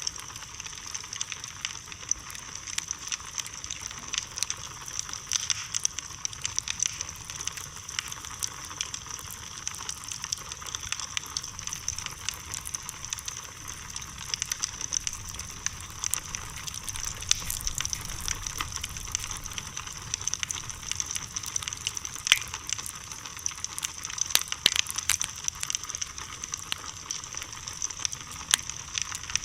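Wood bonfire burning: dense, irregular crackling with frequent sharp pops over a steady hiss.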